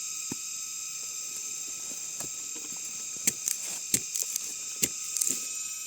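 Steady high-pitched buzzing of forest insects, with a few sharp clicks and scrapes in the second half.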